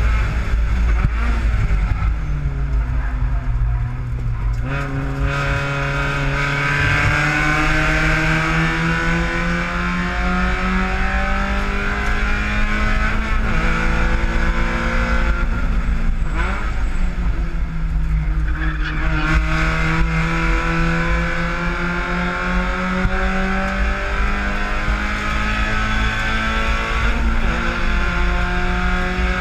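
Spec Miata race car's four-cylinder engine heard from inside the cockpit, at racing revs under load. Its pitch drops near the start, steps up about five seconds in, then climbs slowly through long full-throttle pulls, with a brief dip around the middle and another step near the end, over steady wind and road noise.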